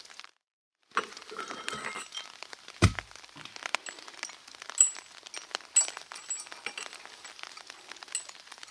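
Metal weight plates clinking and knocking as they are handled, with one heavy thud about three seconds in and scattered small clicks and cracks between.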